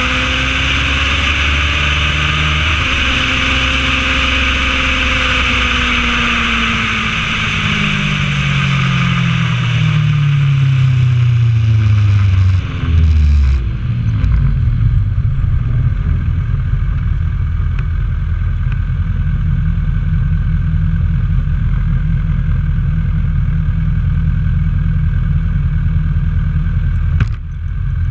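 Honda CB1000R's inline-four engine running down as the motorcycle decelerates, its pitch falling steadily over about ten seconds with wind rushing past, then settling to a steady low idle once the wind noise dies away about halfway through.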